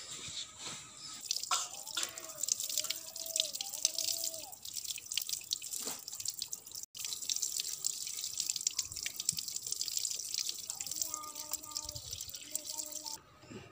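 Water pouring from a tap and splashing off a plucked chicken carcass onto a wet concrete floor as it is rinsed by hand. The splashing starts about a second in and stops shortly before the end.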